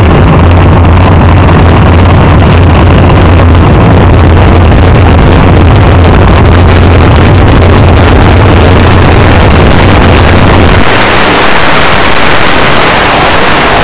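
Fuel altered dragster's supercharged nitromethane V8 running steadily, loud enough to distort the recording. About 11 seconds in the sound changes to a harsher, hissier roar with less low end.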